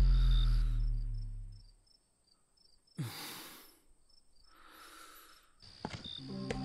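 Horror film sound design: a deep bass boom fades away over the first second and a half, leaving faint cricket chirps and two soft breathy whooshes. Near the end the score comes back in with sharp clicks and low held tones.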